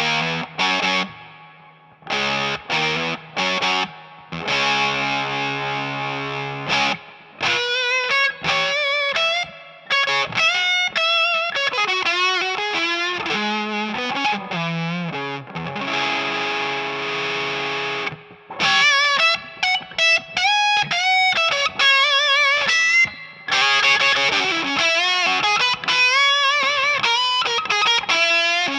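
Electric guitar with single-coil pickups played through an O.C.E. Hammer, a Big Muff-style heavy fuzz pedal. It plays short chord stabs, then held fuzzy chords, and single-note lead lines with bends and vibrato.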